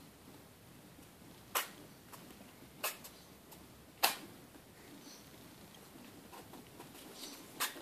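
A pet rat sneezing: four short, sharp sneezes spread over several seconds, the loudest about four seconds in.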